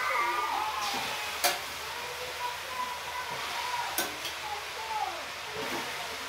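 Chopped water spinach (kermua saag) sizzling in a steel kadai as it is stirred with a metal spatula, with sharp clinks of the spatula against the pan about one and a half seconds and four seconds in.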